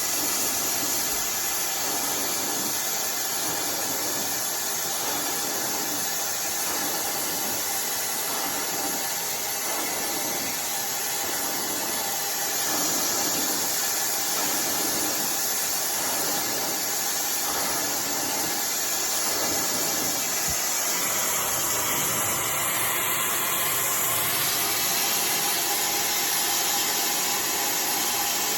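iDryer AI Pro Style hair dryer blowing steadily, a constant whooshing hiss of fan and airflow while hair is dried; it gets slightly louder about halfway through.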